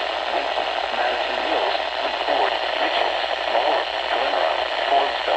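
A radio broadcast of a muffled, hard-to-make-out voice reading an emergency weather alert, under a steady static hiss.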